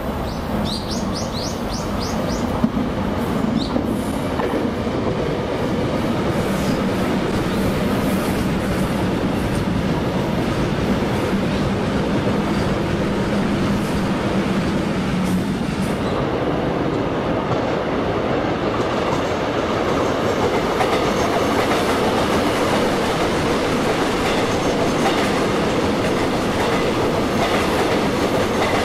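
Korail Line 1 electric commuter train running past on the tracks, a steady rumble of wheels on rail, with a hum that shifts higher in pitch about halfway through.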